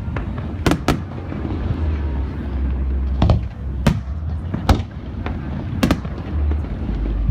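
Aerial fireworks bursting: about six sharp bangs, two in quick succession near the start and then one roughly every second, over a steady low rumble.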